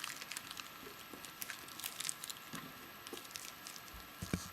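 Scattered light clicks and taps from small plastic toy figures and their packaging being handled.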